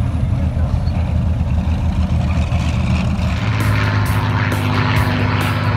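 Piston warbird engines running: the twin engines of a P-38 Lightning turning over as it taxis. About three and a half seconds in, the sound changes to a propeller plane droning overhead, with a pulsing hiss about twice a second.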